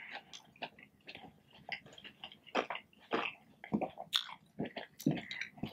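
Close-up chewing of a mouthful of breakfast skillet food, with a series of short, irregular clicks, including a few sharp ones from a metal fork against a cast iron skillet.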